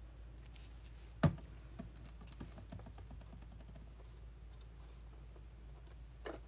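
Faint clicks and rustles of cardstock being handled and pressed into place while a paper handle is glued on, with one sharp knock about a second in and a lighter one near the end.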